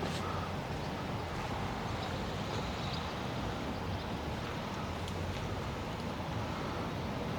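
Steady low background noise of an outdoor street ambience, with no distinct events.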